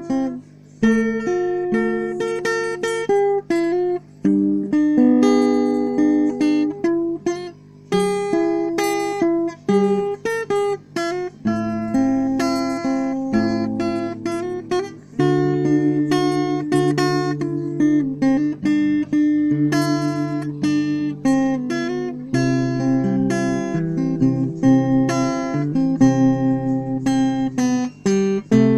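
Steel-string acoustic guitar played fingerstyle: a picked melody over a moving bass line, with the notes left ringing into each other.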